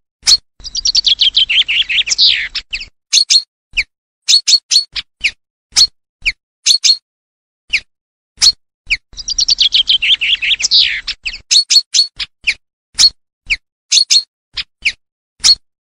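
Common chaffinch song, twice: a fast descending run of notes ending in a falling flourish. Short, sharp high call notes repeat between the two songs.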